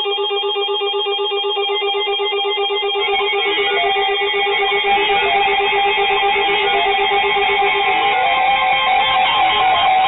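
Music: fast stepping electronic tones in several parts that thicken as it goes on, with a guitar-like plucked sound.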